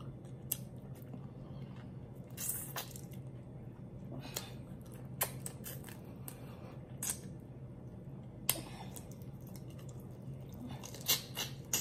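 Close-up eating sounds of cooked lobster being picked apart by hand and eaten: soft wet squishes with irregular sharp clicks and cracks of shell, over a low steady hum.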